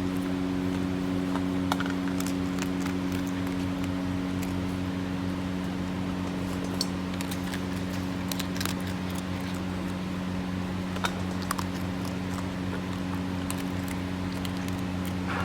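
A steady mechanical hum with scattered faint clicks.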